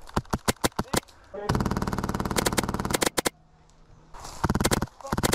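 HPA-converted airsoft MAC-10 with a Polar Star engine firing: a string of quick single shots, then a full-auto burst of about a second and a half at around 35 rounds per second, so fast the shots run together into a buzz, then more rapid bursts near the end.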